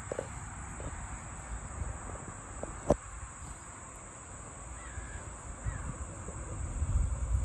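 Outdoor ambience: a few faint bird calls over a steady high-pitched insect drone. A single sharp knock comes about three seconds in, and low wind rumble builds near the end.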